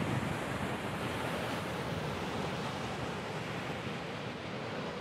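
Pacific Ocean surf breaking and washing up a sandy beach in a steady wash of noise, with wind buffeting the microphone.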